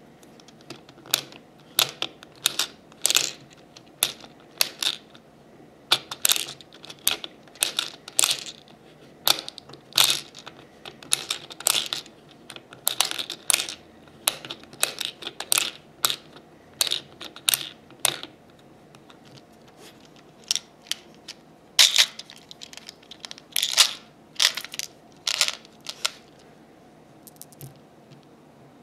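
Plastic knob of a heart-shaped toy candy machine being turned over and over, with ramune candy pellets dropping into its outlet: an irregular string of sharp plastic clicks and rattles that thins out near the end.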